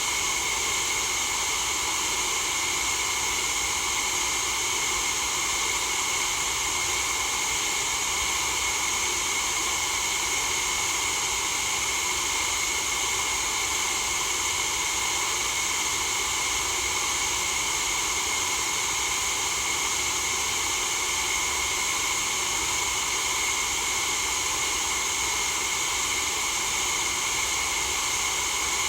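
Steady white noise hiss, even and unchanging throughout, with its energy weighted toward the upper, hissing range.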